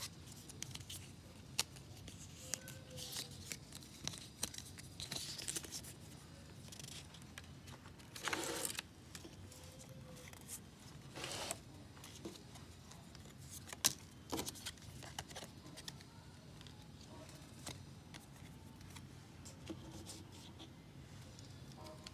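Paper and card inserts from an iPhone box being handled: a few short rustles of paper and scattered light clicks and taps as the cards are picked up and set down on a wooden table, the loudest a sharp click past the middle.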